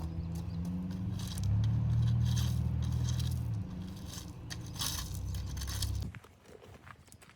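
A vehicle engine running low and steady, with crunching and scraping like tyres on gravel, then stopping abruptly about six seconds in.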